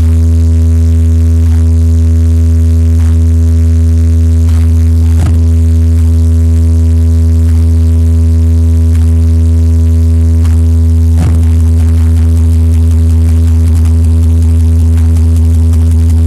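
Synthesized sub-bass test tone: one very loud, deep, steady hum held at a single pitch with a stack of overtones, made to push a subwoofer. Faint ticks recur about every second and a half.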